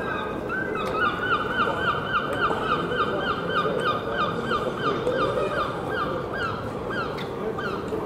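A bird calling over and over, a quick series of short honking notes about three a second that spread out and stop near the end, over steady street background noise.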